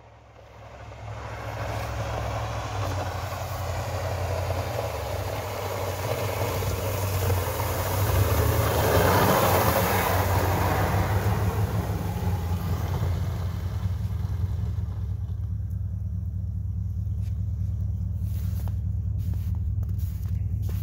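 Chevrolet pickup truck with a front snowplow blade driving past while plowing the road. The noise of its engine, tyres and blade pushing snow builds, peaks about halfway through as the truck passes, then fades as it moves away, over a steady low rumble. A few sharp clicks come near the end.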